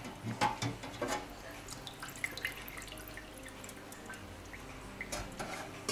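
A brass clock plate swished in a small bowl of rinse water, with a few splashes in the first second, then scattered small drips of water falling back into the bowl as the plate is lifted out and shaken. The plate is being rinsed free of ultrasonic cleaning fluid.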